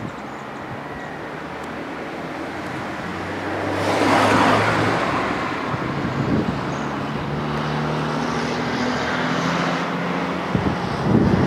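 Motor vehicle passing: engine and tyre noise build to a peak about four seconds in, then settle into a steady engine hum, with another brief swell near the end.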